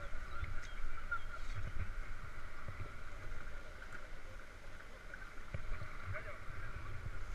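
Irregular muffled low rumbling and light bumps of wind and handling on a body-worn camera's microphone, over a faint steady high hum, with faint voices in the background.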